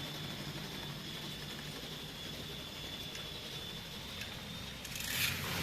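Small 50 RPM lift motor running with a steady hum and a thin high whine as the six-car model train is carried up. About five seconds in, a louder rattling rush swells up.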